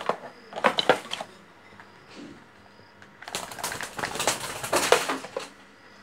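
Rapid, dry clicking and scratching close to the microphone from a young parakeet on the shoulder, nibbling and clambering. A few clicks come at the start, a short cluster about a second in, and a dense run of about two seconds past the middle.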